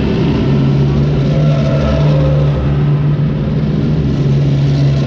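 Armoured military vehicle engines running as the vehicles drive along the parade route, a loud steady drone with a low hum that sets in about half a second in.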